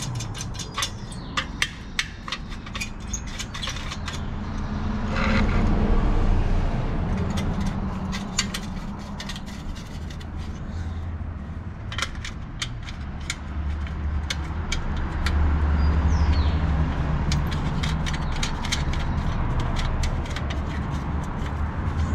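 Small metal clicks and scrapes of bolts and nuts being fitted by hand through an exhaust tip to hold a homemade paint-can silencer. Under them runs a low rumble that swells twice, about a quarter of the way in and again about three quarters in.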